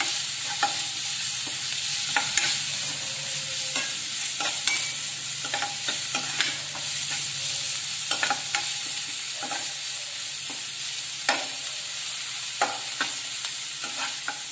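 Chopped onions sizzling in hot oil in a kadai while a metal spatula stirs them, with frequent sharp clicks and scrapes of the spatula against the pan over the steady sizzle. A faint low hum runs underneath.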